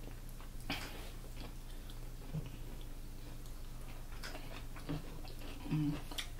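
Soft chewing and a few scattered mouth clicks from people eating sausage and raw vegetables by hand, over a steady low hum.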